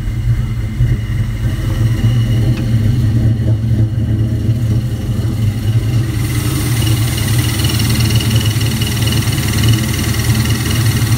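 Ford 4.6 two-valve V8 of a Mustang GT running steadily on first start-up after new camshafts, with steady high metallic tones over the low engine note: the metal chafing noise that the owner puts down to starting the cams with motor oil instead of assembly lube. A hiss gets louder about halfway through.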